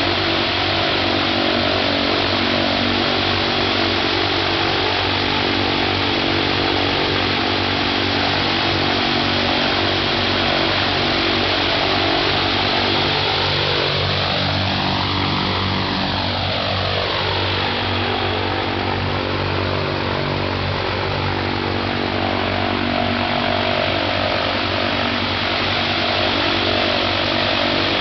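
Shvetsov ASh-82T fourteen-cylinder radial engine of an Ilyushin Il-14T running steadily on the ground, its propeller turning, on the engine's first run. The tone sweeps up and back down once around the middle.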